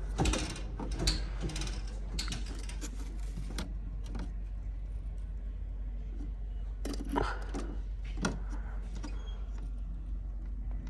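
Scattered metallic clicks and rattles of hand-handled hardware, clustered in the first few seconds and again twice later, over a steady low hum.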